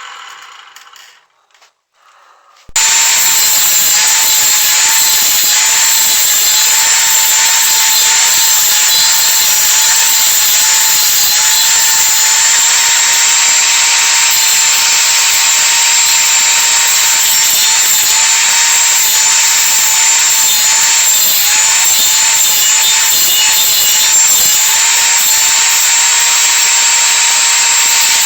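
Copy lathe turning a pine bed leg: a steady machine whine with the noise of cutting wood. It starts abruptly about three seconds in, after a fading sound.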